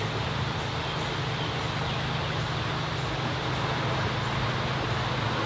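Steady low hum under an even hiss of background noise.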